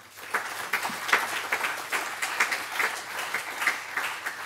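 Audience applauding, many people clapping at once; it starts abruptly and begins to die down near the end.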